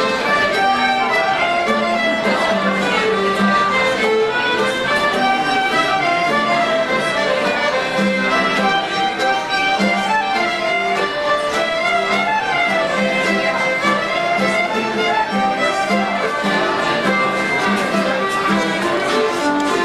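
Fiddle-led Finnish folk dance music played live by a small band, going steadily without a break.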